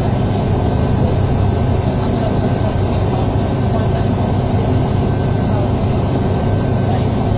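MAN 18.220 single-deck bus's six-cylinder diesel engine and drivetrain running steadily under way, heard from a seat inside the cabin as a low, even drone with a faint steady whine above it.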